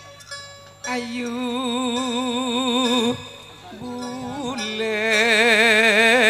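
Madurese gending music: a melody held in long notes with wide vibrato, coming in about a second in, breaking off briefly near the middle, then returning louder.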